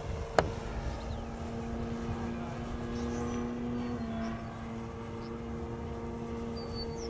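Cobra brushless electric motor and propeller of a large RC Ercoupe model airplane running with a steady hum, its pitch shifting slightly about four seconds in. A single sharp click comes about half a second in, and faint high chirps sound now and then.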